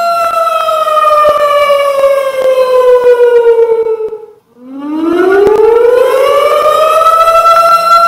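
Civil defense nuclear alarm siren winding down: its wail slides lower in pitch, nearly dies out about halfway through, then winds back up and settles on a steady tone near the end.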